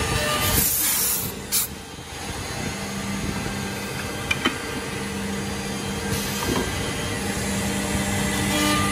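Pneumatic hold-down clamps on a CNC horizontal edge-drilling machine releasing compressed air with a hiss about half a second in, ending in a short sharp burst. Under it the machine runs with a steady hum, and two light clicks come a little before the middle.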